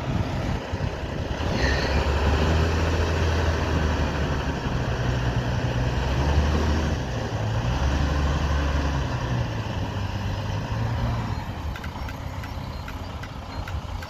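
Wheel loader's diesel engine working as the machine steers and drives away, its level rising and falling and fading near the end. A brief squeal about two seconds in.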